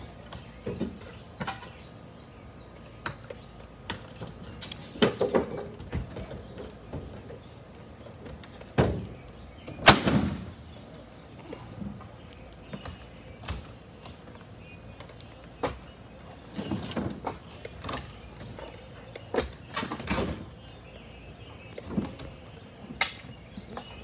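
Irregular knocks, scrapes and cracking of a long-handled pry bar tearing old board siding off a house wall, with the loudest crack about ten seconds in.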